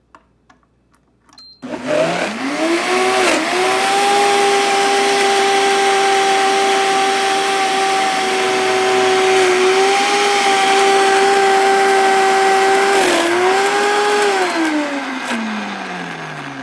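MeyKey 2000 W high-speed countertop blender starting after a short beep from its control panel, its motor spinning up to a loud steady whine as it blends nuts and water for nut milk. Near the end the motor winds down, its pitch falling away.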